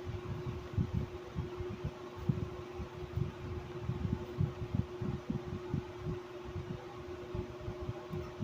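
Window air conditioner's fan running on high speed, compressor off, with a steady tone over an irregular low fluttering. The fan is an old shaded-pole induction motor with worn-out bearings.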